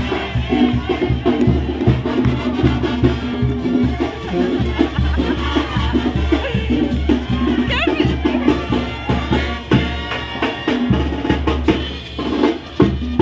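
Live brass band with drums playing a dance tune with a steady, quick beat and held low brass notes.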